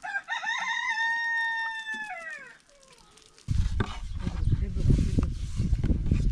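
A rooster crowing once: one long crow that holds its pitch and then drops away at the end. About three and a half seconds in, a loud low rumbling noise with scattered knocks starts suddenly.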